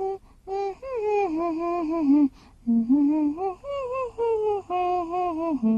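A voice humming a tune without words, gliding from note to note in short phrases with brief pauses between them.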